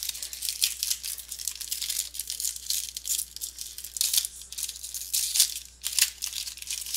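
Trading-card pack wrapper being torn open and crinkled by hand, with crackling and rustling of packaging and cards throughout, a little louder about four to five and a half seconds in.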